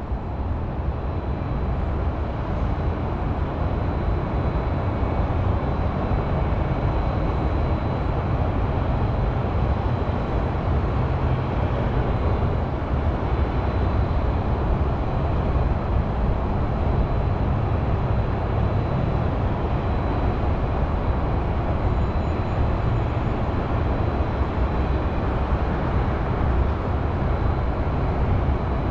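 Steady low rumble of distant highway traffic, swelling over the first couple of seconds and then holding even.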